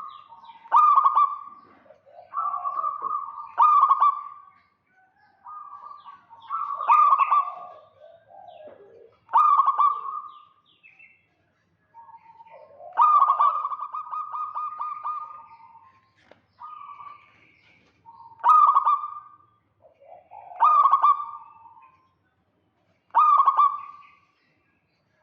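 Zebra dove (perkutut) calling over and over: a rapid, stuttering cooing phrase about every two to two and a half seconds, roughly ten in all.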